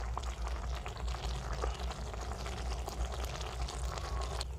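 Creamy beef karahi simmering in a clay pot, small bubbles popping in quick, irregular ticks over a steady low rumble.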